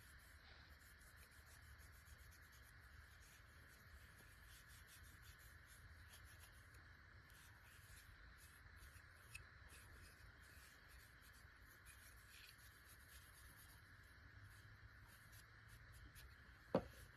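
Faint cloth rubbing as a towel wipes polish off a small pocket knife, over a steady low hum, with a sharp click near the end.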